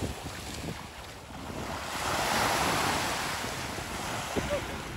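Small waves washing up onto a beach, one surge swelling in about two seconds in and easing off, with wind buffeting the microphone.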